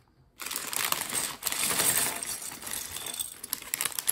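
A plastic bag of Lego pieces crinkling as it is opened, and small plastic bricks and tyres clattering and clinking as they are tipped out onto a table. It starts about half a second in and is loudest early on.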